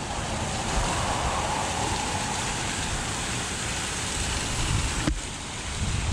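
Steady rushing noise with an uneven, gusty low rumble, as of wind on the microphone. It dips briefly about five seconds in.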